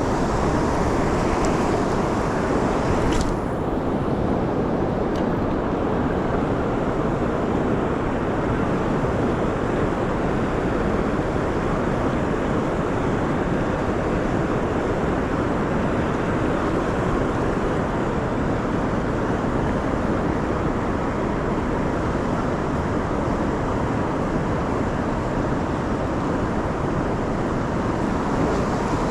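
Steady rushing outdoor noise of wind and river water, even in level throughout, with one short click about three seconds in.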